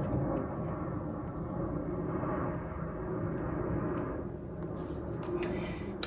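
Steady low rumble of background noise, with a few light clicks and taps near the end as a handheld flashlight is picked up and handled.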